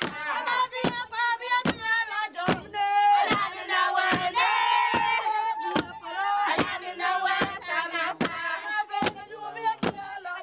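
Group of Kassena women singing and calling together in a chanting chorus over sharp, evenly spaced knocks a little over once a second, the beat of wooden beaters striking an earthen floor.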